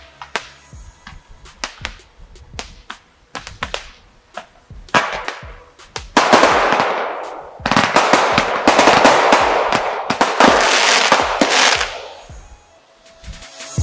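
NICO Kaboomer 54-shot consumer fireworks battery (15 mm calibre) firing. Separate sharp shot reports and pops come in the first few seconds. From about five seconds in there is a dense rapid crackle of many small reports, lasting about seven seconds and dying away near the end.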